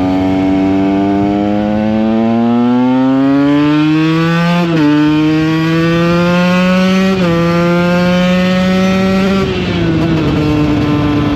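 KTM 125 EXC two-stroke dirt bike engine accelerating hard through the gears: the revs climb, drop sharply at two upshifts, climb again, then fall back as the throttle eases off near the end. It pulls cleanly with no stutter.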